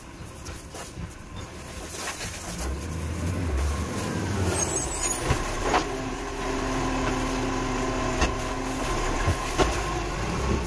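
Side-loading recycling truck driving up and stopping at the kerbside bins, its engine getting louder as it comes in, with a steady whine in its middle part and a few sharp knocks.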